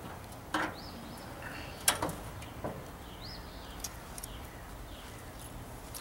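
The hood of a Triumph TR7 being unlatched and lifted: a few clicks and knocks from the catch and the hood, the loudest about two seconds in.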